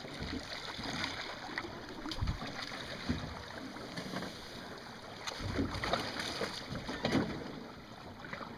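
Ambience on a small fishing boat on the water: a steady wash of water and wind noise on the microphone, with scattered light clicks and knocks and two brief low thumps.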